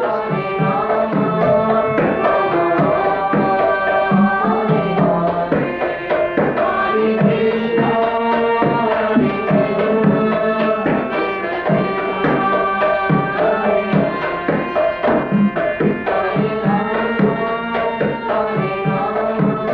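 Indian-style music: a hand drum playing a quick rhythm under a held melody.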